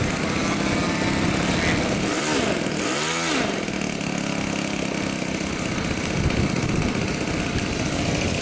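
Model airplane engine running steadily, its pitch rising and falling twice a couple of seconds in.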